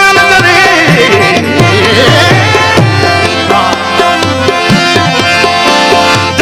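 Instrumental Indian music: tabla playing a rhythm, the bass drum's strokes sliding down in pitch, over held melodic notes.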